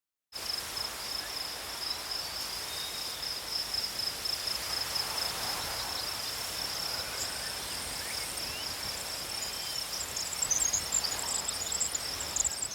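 Steady high-pitched insect chorus, a continuous trill over a faint outdoor hiss, with quicker, sharper chirps joining in the last few seconds.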